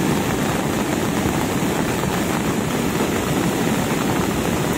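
Cold lahar (volcanic mudflow) flood rushing down a river channel: a steady, deep rumbling of churning muddy water and rolling debris, the flow at high and rising discharge.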